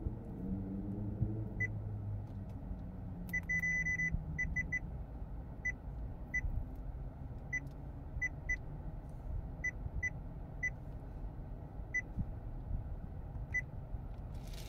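Short, high electronic touch beeps from a 2023 Mitsubishi Xpander's touchscreen head unit, one for each tap on the screen. There are about twenty identical beeps, a quick run of several about three and a half seconds in and then single beeps at uneven gaps, over a low steady cabin hum.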